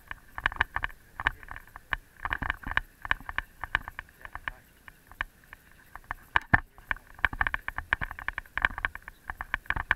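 Irregular rattling and knocking from a bicycle rolling over a bumpy concrete-slab path, picked up through the action camera riding on it. It eases off for a couple of seconds past the middle, with one louder knock about six and a half seconds in.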